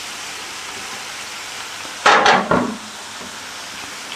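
Beef pieces frying in spiced oil in an aluminium wok, a steady sizzle. About two seconds in, a metal spatula scrapes and stirs through the meat in two quick, louder strokes.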